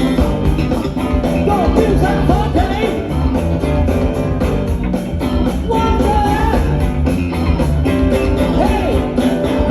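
Live funk band playing with a steady beat over a busy bass line, with sliding, bending notes above.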